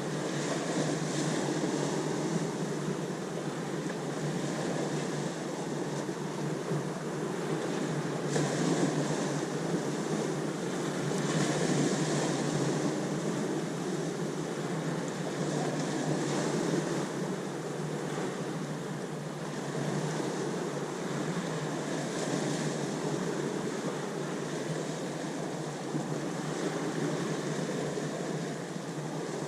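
Ocean waves breaking and washing in a continuous rush of surf, with the hiss swelling every few seconds as waves come in.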